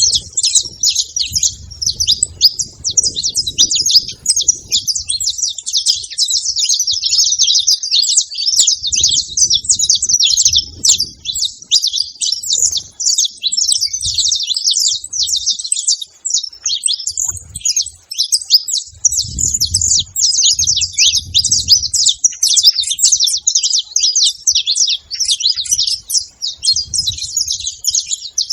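Several saffron finches chirping and twittering together in a dense, continuous chorus of rapid high notes.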